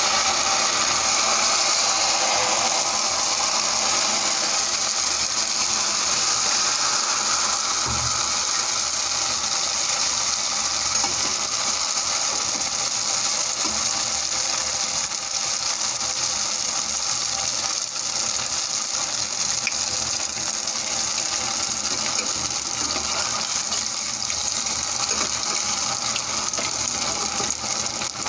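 Pua batter deep-frying in hot oil in a kadhai: a steady sizzle that eases a little toward the end.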